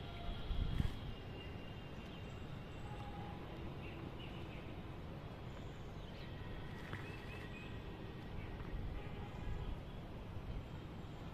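Outdoor ambience: a steady low rumble with faint bird chirps now and then, a small cluster of them about seven seconds in.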